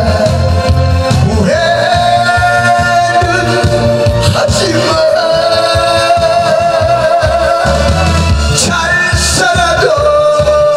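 A man singing a Korean popular song into a handheld microphone over a recorded backing track with a steady beat, holding long notes.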